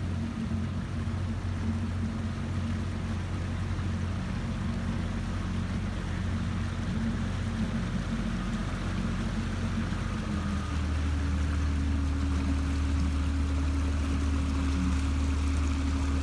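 Motorboat engine running steadily with water washing along the hull; about ten seconds in the engine note shifts to a new steady pitch and grows slightly louder.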